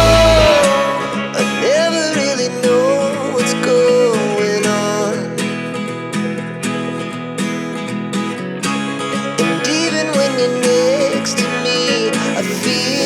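Background music with guitar and a wavering lead melody; the bass drops out about half a second in.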